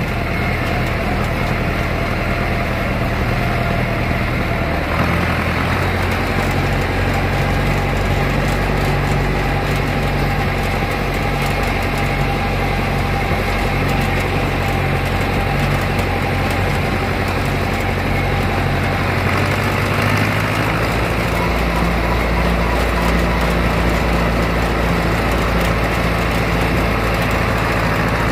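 Vintage Ford tractor engine running steadily under way, heard from the driver's seat. Its note changes about five seconds in and again around twenty seconds, deepening near the end.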